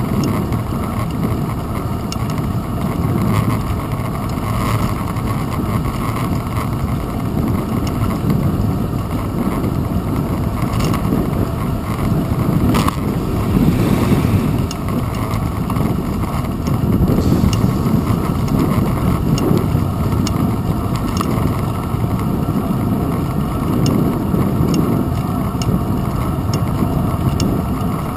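Steady low rumble of riding a bicycle with a handlebar-mounted GoPro Hero 2: road vibration and rolling noise through the mount, with a few light clicks and one sharper knock about halfway through.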